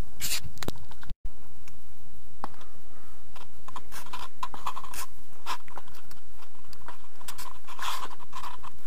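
Irregular crunching footsteps on dry leaf litter and twigs, denser and closer together in the second half.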